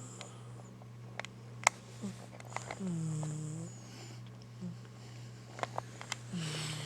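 Domestic cat snoring in its sleep: one snore about three seconds in and another near the end, each a short low drone with a hiss above it. A few sharp clicks fall between them, over a steady low hum.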